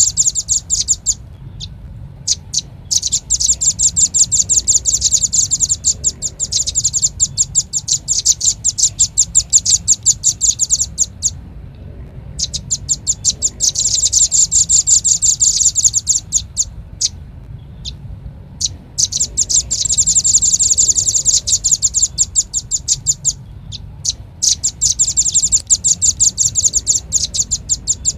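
Velvet-fronted nuthatch (red-billed nuthatch) calling: rapid high-pitched chip trills in bouts of several seconds, broken by short pauses with a few single chips, as a looped bird-lure recording. A steady low hum runs underneath.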